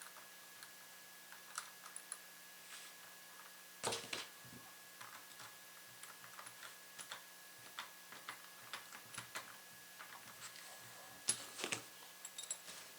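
Faint small metal clicks and ticks of a No. 1 Phillips screwdriver driving the retaining screw into a cam lock's cam and cam shifter, with a louder clack about four seconds in and a cluster of clicks near the end.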